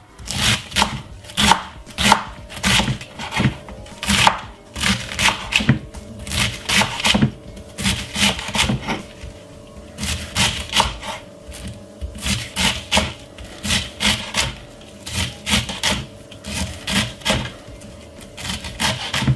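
Kitchen knife chopping cabbage into small pieces on a cutting board, in runs of quick strokes about two to three a second.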